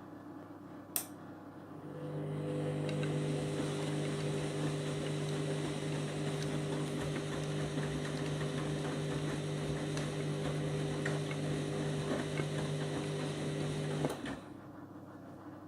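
A click, then a Candy washing machine runs with a steady hum for about twelve seconds and cuts off suddenly.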